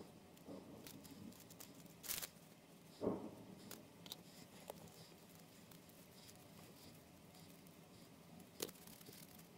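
Faint handling noises of sculpting work over quiet room tone: a few light clicks, ticks and rustles as metal sculpting tools and polymer clay are handled on a foil-covered work surface. A short sharp rustle comes about two seconds in, a soft knock about three seconds in, and a sharp click near the end.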